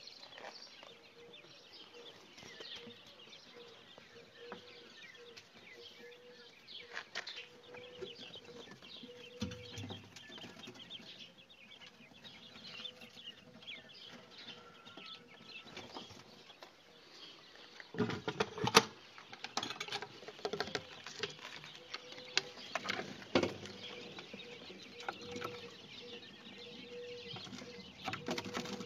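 Young quails chirping and cheeping in a pen, many short high calls throughout. A few sharp knocks come about two-thirds of the way in.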